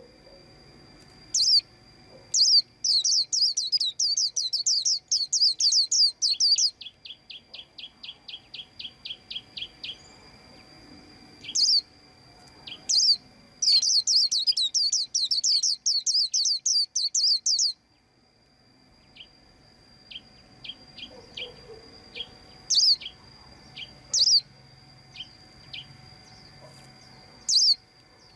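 White-eye chirping: two long runs of rapid, sharp chirps, each about four seconds, with single high notes between them. A row of softer, lower evenly spaced chips follows the first run, and scattered short ticks and chirps come in the second half.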